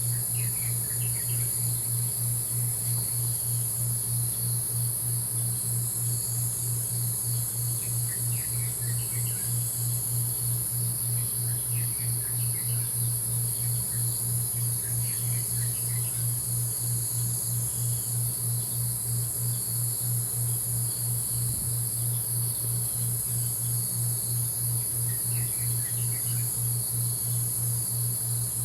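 Nature ambience of crickets: a steady, high insect trill under a low, rapidly pulsing hum. Scattered short bird chirps come through a few times.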